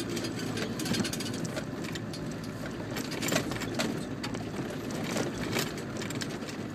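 Land Rover engine running at low speed, heard from inside the cab, with irregular knocks and rattles as the vehicle jolts over a rough, rutted track.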